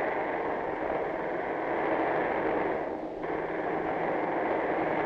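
Steady, even rushing noise with no distinct knocks or tones, briefly dipping in its upper range about three seconds in.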